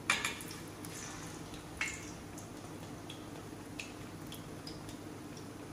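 Plantain slices frying in shallow oil in a stainless steel pan, with scattered small pops and crackles. Two louder hits come as the slices are turned with a fork, one at the very start and one about two seconds in.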